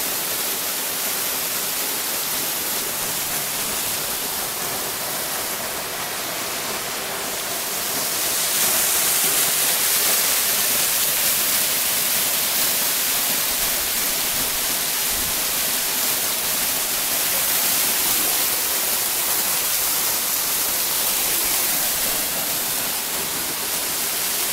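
Waterfall cascading down a rock face: a steady rush of falling water that grows a little louder about eight seconds in.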